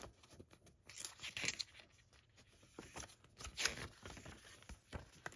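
Pages of a paper booklet being handled and turned, giving a few soft paper rustles.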